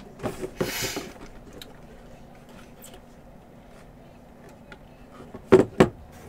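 Hands pulling the lid off a white cardboard box near the start, a brief rustle and scrape, along with short vocal sounds. Then quiet room tone, and two short vocal sounds near the end.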